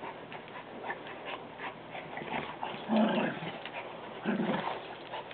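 Two dogs playing tug-of-war with a rope toy: scuffling and clicking throughout, with two short, loud dog sounds about three seconds and four and a half seconds in.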